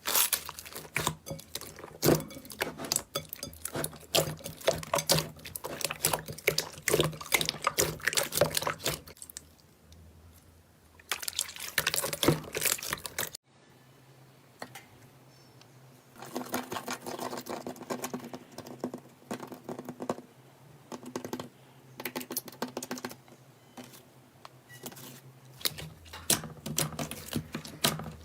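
Slime being squeezed and poked by hand, making dense runs of sticky clicks and squelches. The sound changes abruptly about halfway through.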